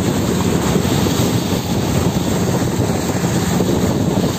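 Fishing boat's engine running steadily at cruising speed with a fast, even thrum, over a rush of wind and sea spray.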